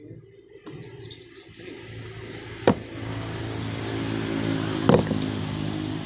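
A motor vehicle's engine running steadily and growing louder over the first few seconds, with two sharp knocks about two seconds apart.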